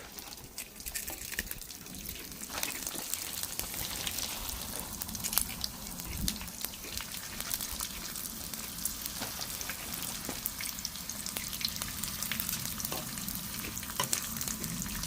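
Dried fish frying in hot oil in an electric pan: a steady sizzle with many small crackles and pops.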